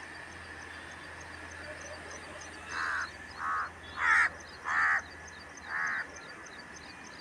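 A crow cawing five times, harsh calls starting about three seconds in and coming a half second to a second apart.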